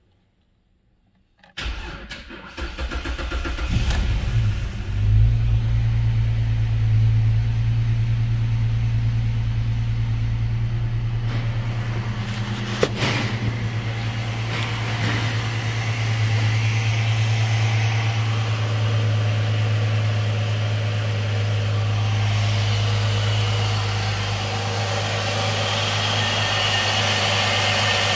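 A 2005 Jeep Liberty's 3.7-litre V6 cranks and starts about a second and a half in, revs briefly, then settles into a steady idle. One sharp click is heard about halfway through.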